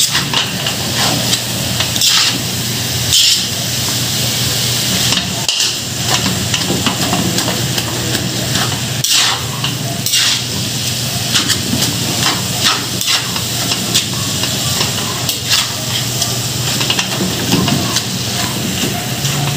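Ground pork with carrots and celery sizzling in a steel wok while a metal spatula stirs and scrapes it. The steady sizzle is broken by irregular scraping strokes of the spatula against the pan.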